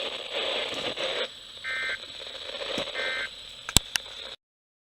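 Weather radio hiss, then two short warbling bursts of Emergency Alert System data tones a little over a second apart: the end-of-message code that closes the warning broadcast. Two sharp clicks follow near the end, and the audio then cuts off.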